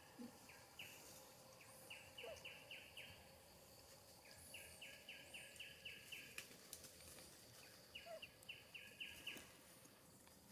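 Faint forest ambience: a chirping call comes in quick runs of five or six even notes, repeated several times, with a few fainter high chirps between.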